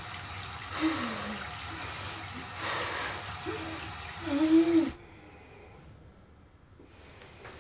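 A woman retching over a toilet bowl: heavy gasping breaths, with short strained groaning heaves that are loudest about four and a half seconds in. The sound drops to a low room hush about five seconds in.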